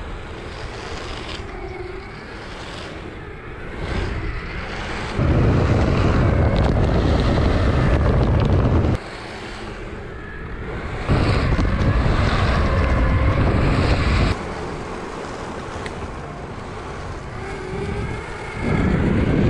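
Wind buffeting the microphone, over a steady rushing noise, with three loud stretches of several seconds each, the first about five seconds in, the second about eleven seconds in and the last near the end.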